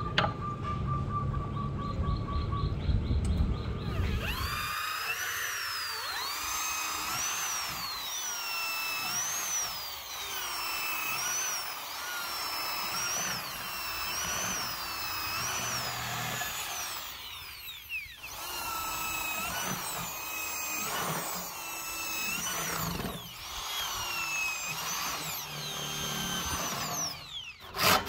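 Corded electric drill with a long wood auger bit boring holes through a wooden handle blank, starting about four seconds in. The motor whine dips in pitch as the bit bites into the wood and rises again as it frees up, over and over, with a short pause about eighteen seconds in.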